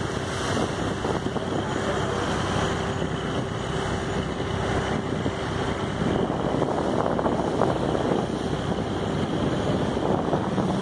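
Wind buffeting the microphone over the wash of sea water and waves around a small boat at sea, with a faint steady hum that fades out a little past halfway.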